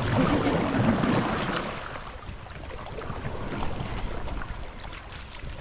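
River water rushing and splashing around an inflatable raft, louder for the first two seconds and then easing off.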